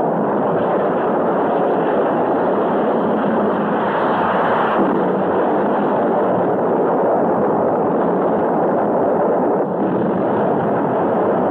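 Sound effect of a ship exploding: a loud, dense, continuous rumble of blast noise with no separate bangs, swelling slightly about four seconds in. It sounds dull and muffled.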